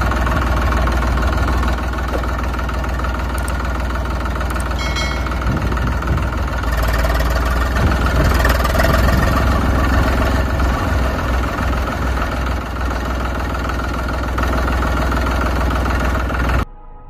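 A tractor engine running steadily with a deep rumble, cutting off suddenly near the end.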